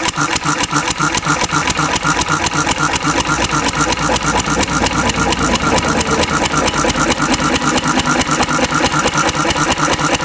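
Antique Cushman Cub single-cylinder four-stroke stationary engine running steadily with a rapid, even firing beat. It is running on a fuel that is about 90% Zippo lighter fluid.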